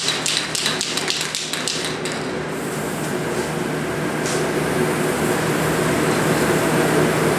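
A quick run of sharp knocks, about five a second, for the first two seconds, over a steady hum and hiss like a running fan or heater.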